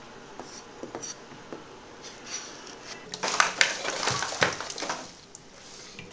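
A few light knocks on a wooden chopping board, then about three seconds in, tap water running into a stainless steel sink with eggs clicking against each other and the sink as they are rinsed by hand; the water fades out near the end.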